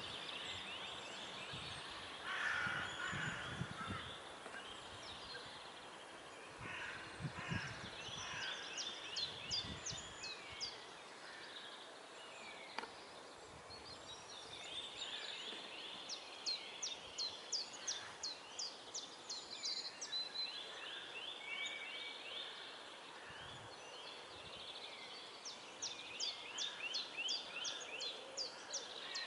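Small songbirds singing: repeated phrases of rapid, falling notes run together in quick series. A low rumble sits under the first few seconds.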